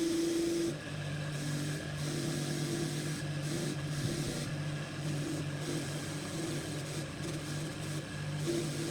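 A motor-driven workshop tool running steadily with a hum while an abrasive rasps against metal. The rasping noise eases off briefly several times, as if the work is lifted and pressed back.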